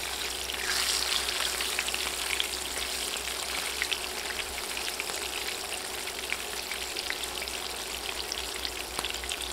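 Pomfret fish shallow-frying in hot oil in a pan: a steady sizzle peppered with many small crackles and pops of spitting oil.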